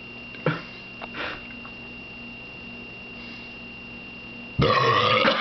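A quiet stretch with a faint steady high whine and a couple of small clicks, then, near the end, a sudden loud outburst of a person's voice.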